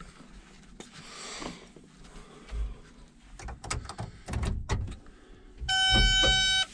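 A few knocks and clicks from inside a Cat 323F excavator cab, then near the end a loud, steady electronic beep lasting about a second, from the cab's buzzer.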